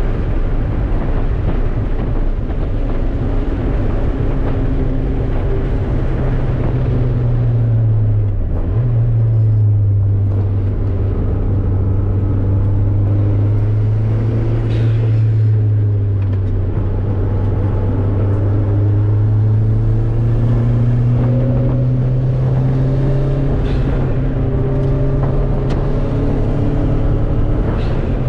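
A car's engine and exhaust, heard from inside the cabin while lapping a road course. The engine note slowly rises and falls with the throttle, with a sudden jump in pitch about eight and a half seconds in, over steady wind and road noise.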